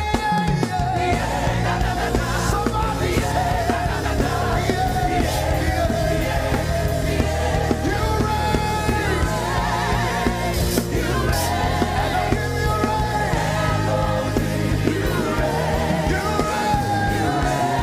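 Worship music: voices singing with wavering held notes over instruments with a steady bass.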